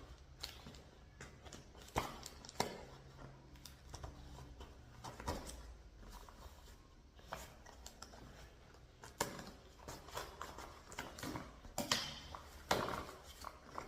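Hands unpacking and handling small plastic-packed items: scattered clicks and taps with soft rustling of packaging, a few sharper knocks near the end.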